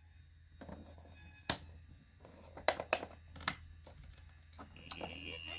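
Circuit-bent Tyco Blue's Clues toy refrigerator between voice loops: a steady low electrical hum with a handful of sharp clicks, then a steady high electronic tone starts near the end.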